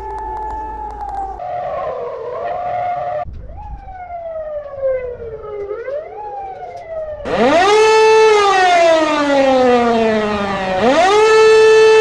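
Emergency warning sirens played back at four times speed. A steady two-tone siren turns wavering, then gives way to sirens sliding up and down in pitch. About seven seconds in, a louder siren starts with long falling sweeps and rises back up near the end.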